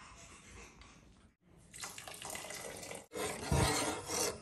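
Watery sloshing and bubbling of soup being stirred with a ladle in a pot as cornflour slurry is mixed in. It comes in three short pieces that get louder, with a dull knock about three and a half seconds in.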